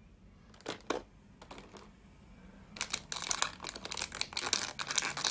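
Thin plastic packaging crinkling as small parts are worked loose from a plastic blister tray: a few light clicks, then a dense spell of crinkling over the last two and a half seconds.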